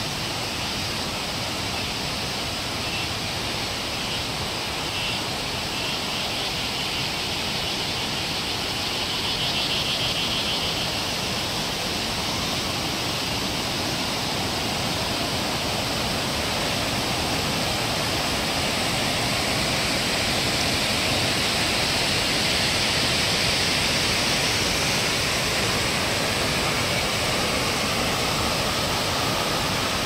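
Stream water rushing and churning white down a sloping concrete weir, a steady rush that grows a little louder in the second half.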